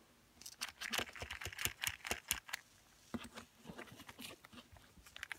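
Faint clicks and taps of a small posable plastic toy pony being handled and turned in the hands, pausing briefly around the middle.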